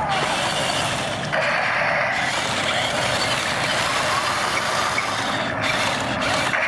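Infrared remote-control toy battle tanks being driven: their small electric motors and plastic gearboxes whir continuously, with a steadier high whine coming in about a second and a half in.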